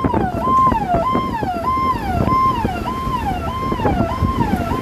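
An electronic vehicle siren sounding a repeating tone that holds and then falls, about twice a second, over the low rumble of a moving vehicle and wind.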